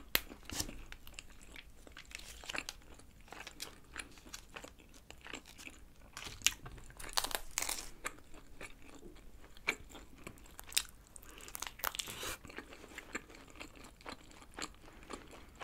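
Biting and chewing a slice of thin-crust pepperoni pizza close to the microphone, with scattered crisp crunches.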